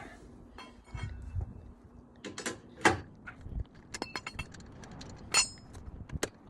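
Lug wrench and lug nuts clinking and clicking as the nuts are worked off a car wheel: a series of separate metal clicks and pings, the loudest about three seconds in and again about five and a half seconds in.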